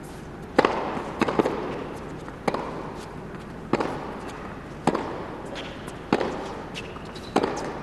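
Tennis rally on an indoor hard court: the ball is struck back and forth with sharp racket hits about every second and a quarter, with ball bounces between. Each hit rings briefly in the arena's echo.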